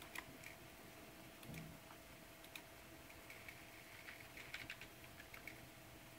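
Opened 2.5-inch laptop hard drive running with its cover off: a faint steady whine from the spinning platter and spindle motor, with scattered light clicks from the read/write head arm seeking, a quick run of them about four and a half seconds in.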